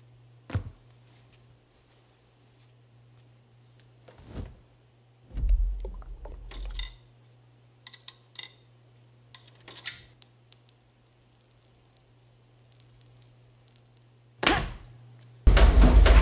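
Coins clinking into a coin-operated washing machine's coin slide and the slide being worked, amid several separate clunks of handling, over a steady low hum. A faint high whine runs for a few seconds in the second half, and a loud burst of music comes in about a second before the end.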